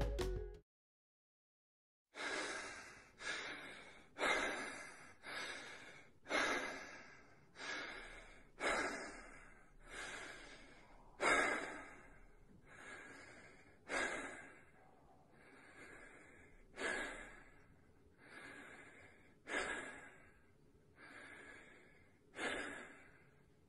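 A person breathing heavily in a steady rhythm, about one rasping breath a second, each starting sharply and fading. The breaths begin about two seconds in and grow a little weaker toward the end.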